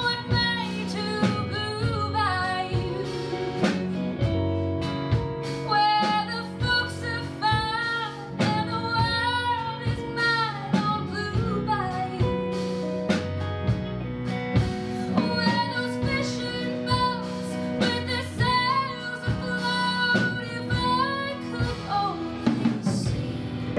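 A woman singing a folk-rock song live over acoustic guitar, with a band and drum kit playing along.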